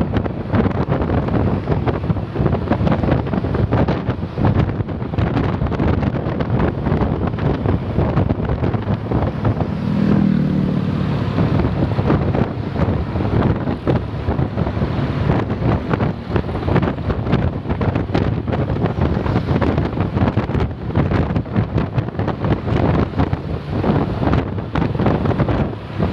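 Heavy wind buffeting on the microphone over road vehicle noise, with a low engine drone briefly swelling about ten seconds in.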